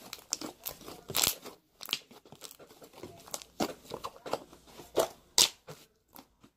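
Homemade slime being squished and poked by hand, giving irregular sticky pops and crackles.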